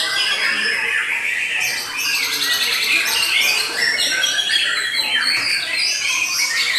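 White-rumped shamas singing, several birds at once: a dense, unbroken stream of quick, varied whistled and chattering phrases.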